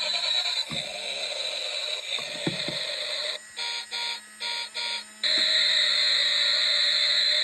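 Electronic beeping: four short pulses in quick succession, then a louder, steady electronic buzzing whir takes over. Two soft knocks come before the beeps.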